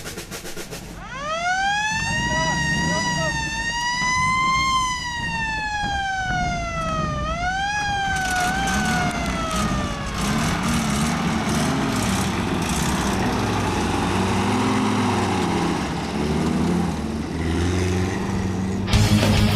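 A siren winds up about a second in, wavers at its peak, and winds down with a brief second rise about seven seconds in, like an air-raid siren. After it comes a steady noisy rumble with low, wavering voice-like sounds underneath.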